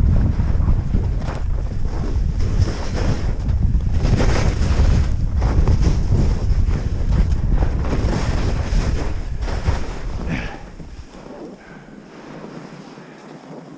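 Heavy wind buffeting the microphone during a fast ski descent, with skis scraping and hissing over firm, tracked snow through the turns. The wind noise falls off sharply about ten and a half seconds in.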